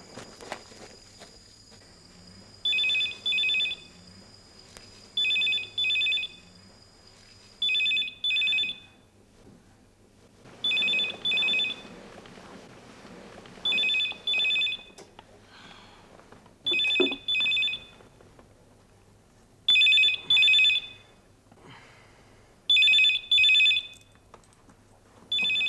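Telephone ringing in the double-ring pattern: two short trilled rings, then a pause, repeated about every three seconds.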